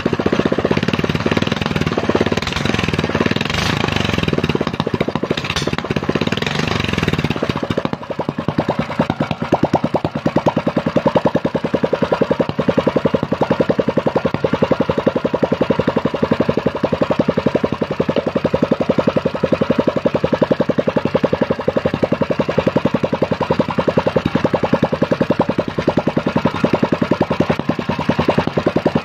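Small Sogo single-cylinder four-stroke petrol engine running at a raised speed, then dropping to a steady, evenly firing idle about eight seconds in, while its carburetor is set with a screwdriver.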